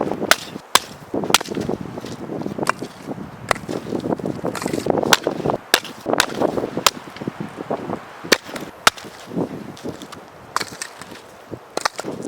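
A quick, irregular series of sharp cracks and knocks, one or two a second, over a background of wind.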